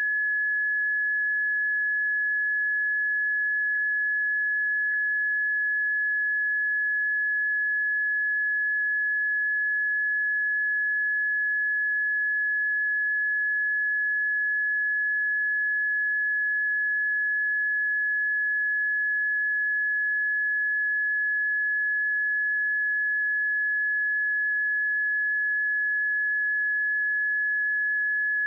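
Steady, high-pitched electronic early-warning tone from a seismic monitoring stream, held at one unchanging pitch. The monitor changes this tone when an earthquake or eruption is detected, so an unchanged tone means no new event is being flagged.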